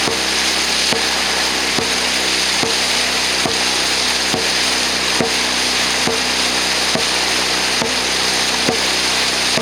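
Dragon boat under way: a steady rushing hiss of water and wind, with a sharp, regular knock a little more than once a second that keeps the crew's paddling stroke rhythm.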